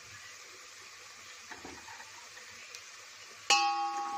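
Onions and spices sizzling faintly in oil in a steel pot; about three and a half seconds in, a sharp metallic clang of steel cookware being struck, ringing on with several clear tones.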